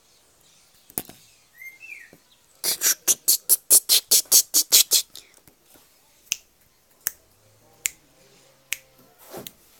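A quick run of about a dozen sharp clicks, some six a second, then single clicks roughly once a second: a person clicking to get a puppy's attention.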